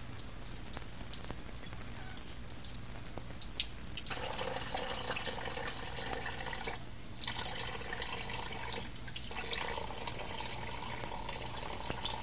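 Tap water running into a sink, starting about four seconds in and stopping briefly near seven seconds, with scattered drips and small clicks before it starts.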